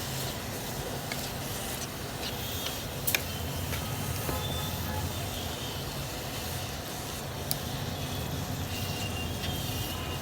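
Chicken mince with capsicum and tomato sizzling steadily in a pan on the stove, with a few sharp clicks of the spoon against the pan, the loudest about three seconds in.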